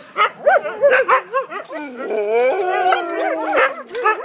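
Several Siberian huskies barking and yipping over each other in short rising-and-falling calls. About halfway through, one dog holds a long howl that slides slowly down in pitch under the barking.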